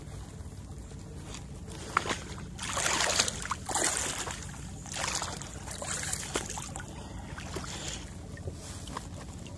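Kayak paddle strokes swishing and splashing in shallow water, four or five strokes starting about two and a half seconds in, over a steady low rumble.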